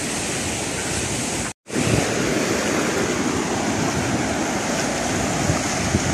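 Sea surf washing and breaking on a sandy beach, a steady rushing wash. It cuts out for a moment about one and a half seconds in and comes back louder and fuller.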